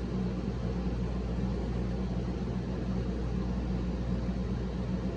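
Steady low machine hum with an even hiss, unchanging throughout: the room tone of an appliance such as a fan or air conditioner running.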